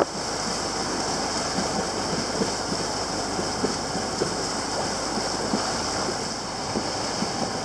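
Water rushing and splashing along a sailboat's hull and wake as it makes way through light seas, with wind buffeting the microphone; a steady rush with small scattered splashes.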